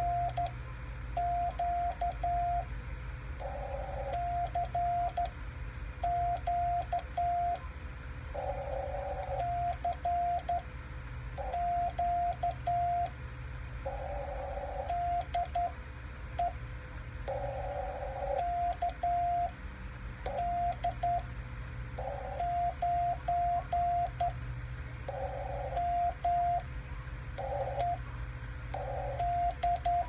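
Morse code sidetone from a transceiver: a steady tone of about 700 Hz keyed on and off in dits and dahs by hand on a Lionel J-38 straight key, sending the CQ call in repeated groups with pauses between them. Faint clicks come with the keying.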